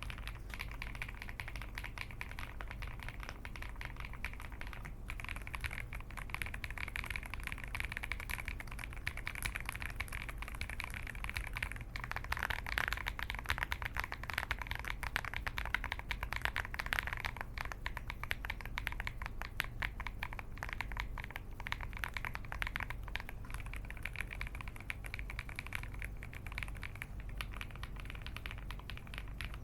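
Rapid, continuous typing on an LMK81 full-aluminium 75% mechanical keyboard with a polycarbonate plate and Akko switches: a dense stream of key clacks that gets busier and louder for a few seconds midway, over a faint steady hum.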